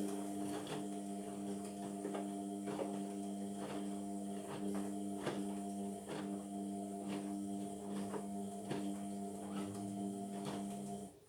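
Indesit washing machine running its drum on a cotton 60 wash: a steady motor hum with irregular clicks and knocks. It starts abruptly and cuts off near the end, about eleven seconds later.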